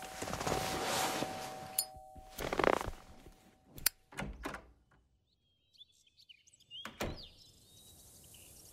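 Door sound effects: rustling and clatter, a few sharp clicks around four seconds in, then a door shutting with a thunk about seven seconds in. Faint chirps follow near the end.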